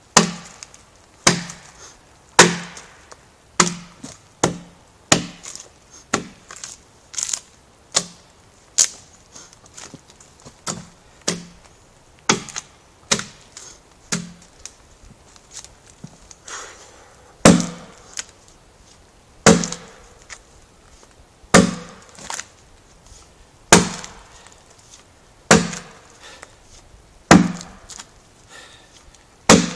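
Steel adze head biting into a red pine log as it is hewn square: a steady run of sharp chopping strikes, about one a second, with the heaviest blows coming about every two seconds in the second half.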